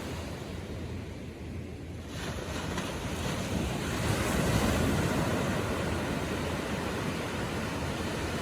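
Gentle ocean waves washing onto the shore: a wash that swells from about two seconds in, is loudest around the middle, then settles to a steady surf hiss.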